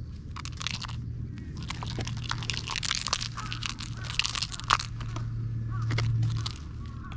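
Irregular scratchy crackling and rustling as a cat bites, claws and rolls with a pompom wand toy on a gritty concrete curb. A low steady hum runs underneath.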